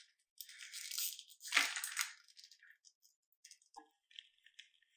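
A loud rustling scrape in the first couple of seconds, then a block of Parmigiano Reggiano being rubbed on a metal grater: short, quieter rasping strokes, a few a second.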